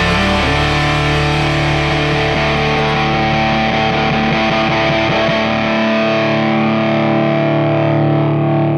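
Music: the instrumental close of a country song, distorted electric guitar holding sustained chords. The deep bass drops out a little over halfway through while the guitar rings on.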